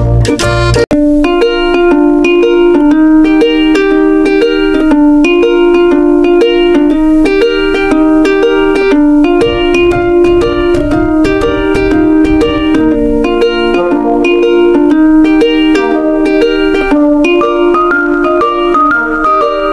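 Background music of plucked strings playing a steady run of notes, with a brief break about a second in.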